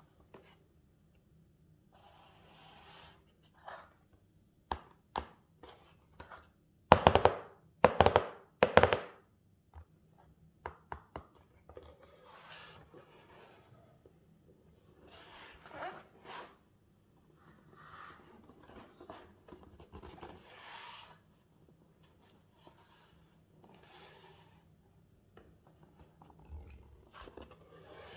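Cardboard box handled and turned in the hands, with scattered clicks and soft rubbing of fingers on the cardboard. Three loud clusters of taps come about seven to nine seconds in.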